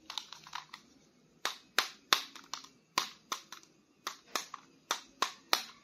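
Hands handling a plastic action figure and its packaging: a series of sharp, irregularly spaced clicks and taps, more than a dozen in all.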